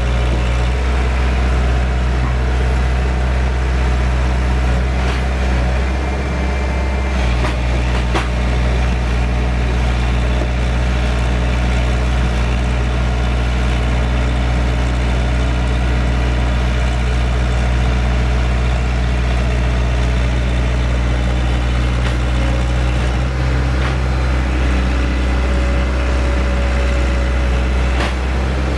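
Heavy diesel engine of an excavator running steadily, with its tone shifting slightly a few times as the load changes. A few sharp clicks or knocks come through, one around a quarter of the way in and one near the end.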